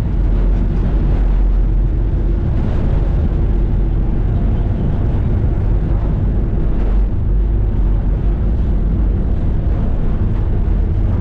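Engine of a moving vehicle running with a steady low rumble.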